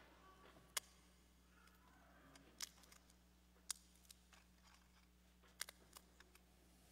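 Near silence over a steady low hum, broken by a scattering of short, sharp clicks and taps, the loudest about a second in and near the middle.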